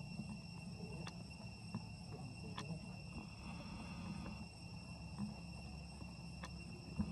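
Steady high-pitched insect drone holding several pitches at once, over a low rumble, with a few sharp clicks scattered through, the loudest near the end.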